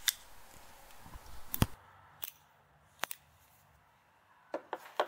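Remington percussion revolvers being handled on wooden boards: a series of short, sharp metallic clicks and knocks, the loudest a knock about a second and a half in.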